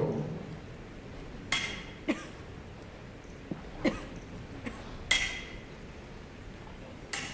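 Foil blades meeting during a fencing bout: scattered sharp clicks and clinks, about seven in all, a few with a brief metallic ring.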